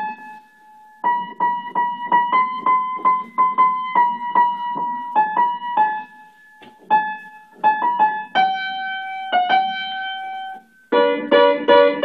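Upright piano played by a child: a simple melody of single high notes struck one at a time, with a few short pauses. About eleven seconds in it changes to louder chords in a lower register, played with both hands.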